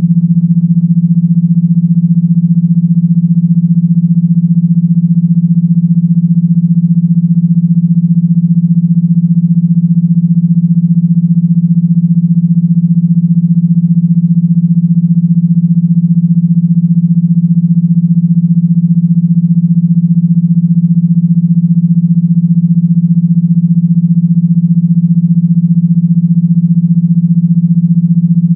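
A synthesized low buzz tone held at one steady pitch, loud and unbroken, the kind of tone played through a phone speaker to shake water out of it.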